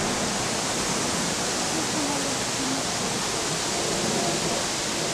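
Steady, even hiss of outdoor background noise, with faint distant voices now and then.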